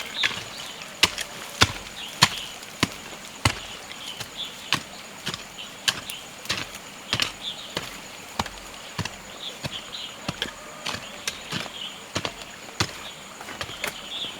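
A hand tool chopping in a steady rhythm, about three strokes every two seconds, each a sharp, short strike.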